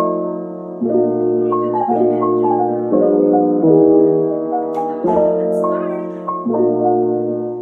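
Background music: a gentle keyboard tune of held chords that change every second or so, with a melody on top.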